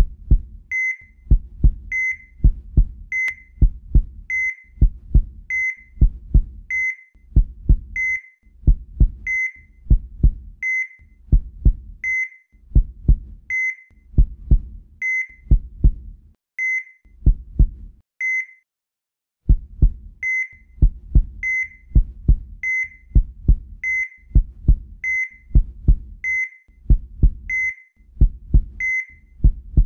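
A slow heartbeat, lub-dub double thumps about once a second, each paired with a short high electronic beep like a heart monitor's. The beats stop for about two seconds a little past the middle, then resume at the same pace.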